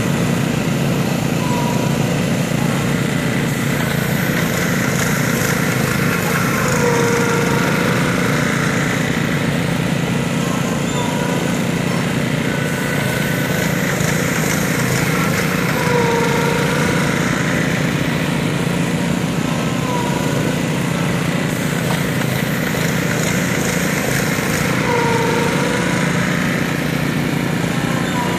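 Small gasoline engine of a Graco LineLazer 3900 line striper and its ride-on unit running steadily while painting parking-lot stripes.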